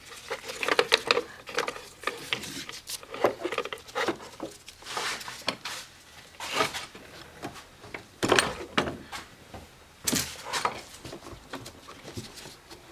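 Irregular clicks, taps and knocks of parts being handled and moved aside in a car's engine bay, spread across the whole stretch with no steady rhythm.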